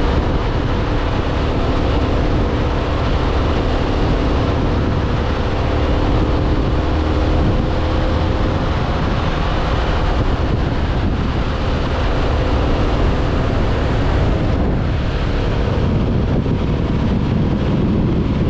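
Motorcycle engine running at a steady cruising speed, with heavy wind buffeting on the microphone and road noise.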